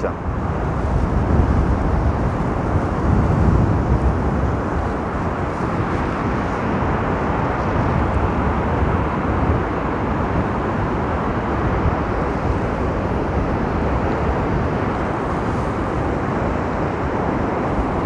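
Stormy sea surf: waves breaking and washing up a sandy beach in a steady rush, with strong wind buffeting the microphone as a low rumble.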